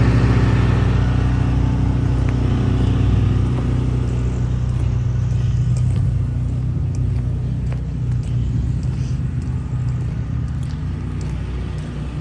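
An engine idling steadily, its low hum slowly growing fainter.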